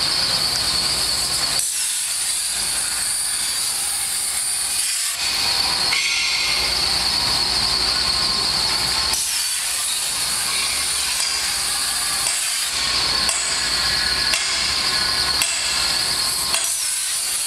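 Plasma cutting torch hissing steadily as it cuts slots in 4-inch square steel tube, its high-pitched tone shifting every few seconds.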